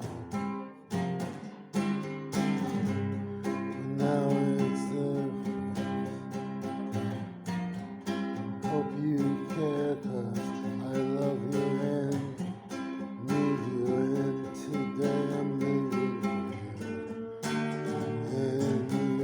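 Acoustic guitar music, strummed and plucked, with what may be a singing voice over it.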